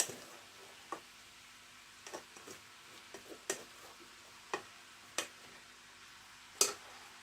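A cooking spoon knocking lightly against a pan as rice is spooned in, about nine sharp, irregular taps over a faint steady hiss.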